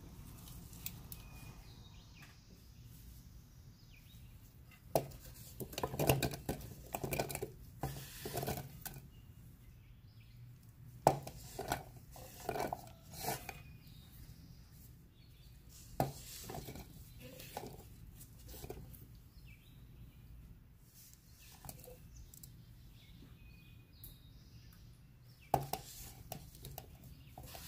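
Food-preparation handling sounds: irregular knocks and clatters, in clusters, as chunks of cut onion, garlic, peppers and tomato are dropped and slid from a wooden cutting board into the plastic bowl of a food processor.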